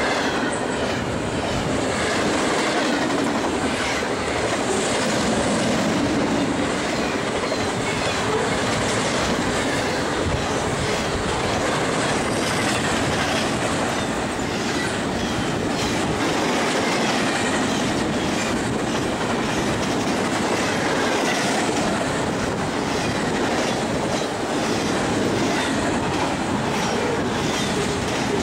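A BNSF intermodal freight train of double-stack container cars and trailer flatcars rolling past close by. Its steel wheels make a steady clatter over the rails, with faint high wheel squeals now and then.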